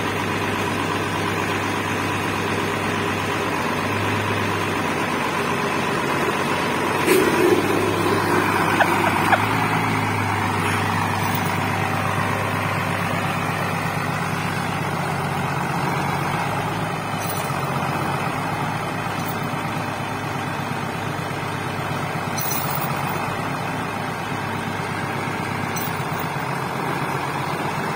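Deutz-Fahr Agrotron tractor's diesel engine running steadily as the tractor moves slowly into position, with a few louder knocks about seven to nine seconds in.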